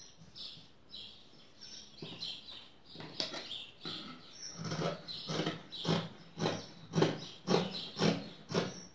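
Scissors cutting through knit fabric, a run of snips at about two a second that grows louder from about halfway through.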